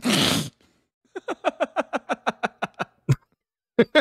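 A short burst of noise, then a person laughing in a quick run of short ha-ha pulses, about seven a second, pausing briefly and picking up again near the end.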